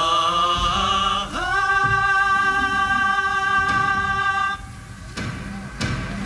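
A singing voice holds two long notes over music, the first with a wavering vibrato, the second for about three seconds, before the sound drops quieter near the end.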